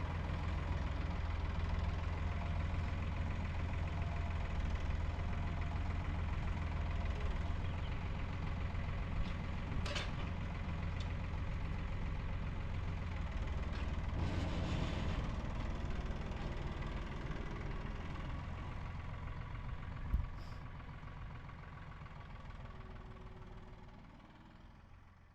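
An engine running steadily, then fading away over the last several seconds, with a sharp click about ten seconds in and a short thump about twenty seconds in.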